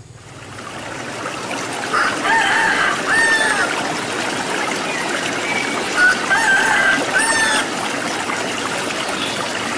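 A rooster crowing twice, each crow in two drawn-out parts, over a steady trickle of running water; the sound fades in at the start.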